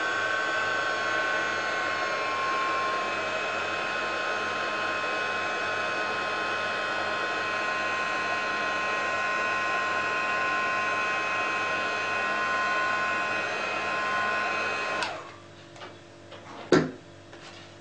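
Embossing heat gun running steadily, a hair-dryer-like blower whine, melting clear embossing powder on a stamped card. It switches off about fifteen seconds in, and a sharp knock follows a couple of seconds later.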